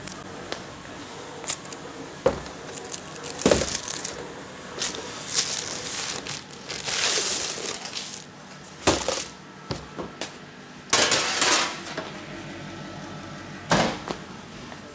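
Freshly baked bread rolls being picked off a metal baking tray by hand, with a handful of sharp knocks and clinks from the tray and rustling of the baking paper beneath them.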